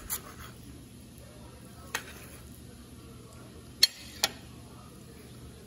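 A few sharp clicks of a steel knife and fork against a ceramic plate as a piece of steak is cut and lifted, the loudest a close pair about four seconds in, over a faint steady hiss.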